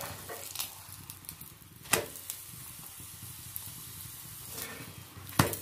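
Paneer paratha sizzling in ghee on a hot tawa, with a metal spatula clacking sharply against the griddle about two seconds in and again, louder, near the end.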